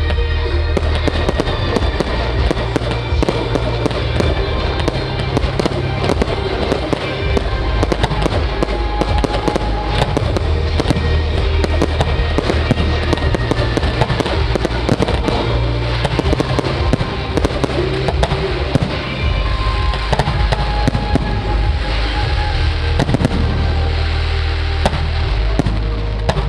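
Aerial fireworks bursting and crackling in a rapid, continuous barrage, over music with deep, sustained bass notes.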